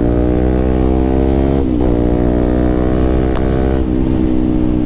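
KTM RC 200's single-cylinder engine running hard through a loud aftermarket SC Project-style full-system exhaust as the bike is ridden. The engine note holds steady, with brief dips in pitch about two and four seconds in.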